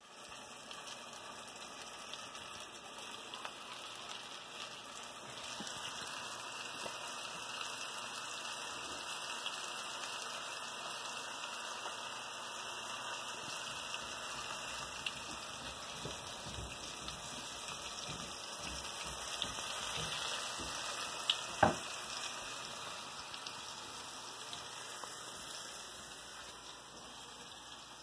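Venison chops sizzling steadily in hot oil in a frying pan. A sharp knock comes about three-quarters of the way through.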